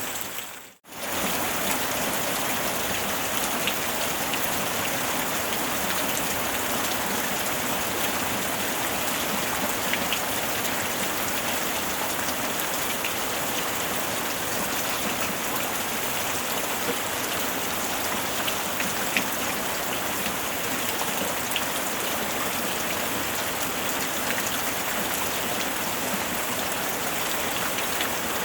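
Steady rainfall, an even hiss with scattered faint drop ticks. The sound fades out almost to silence for a moment just under a second in, then comes straight back, like a splice between loops of the recording.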